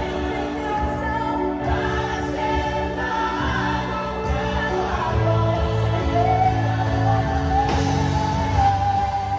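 Choir singing a gospel worship song with band accompaniment and a steady beat, the voices holding long notes.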